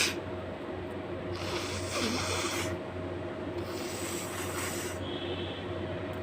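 A person breathing forcefully through the nose twice, each breath lasting about a second, while trying to bring on a sneeze.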